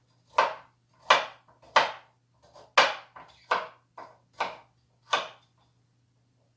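Knife chopping peeled carrots on a cutting board: seven separate, sharp chops a little under one a second, stopping a little after five seconds in.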